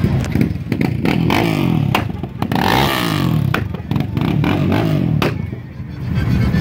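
Off-road vehicle engine revving up and down several times, with scattered sharp knocks.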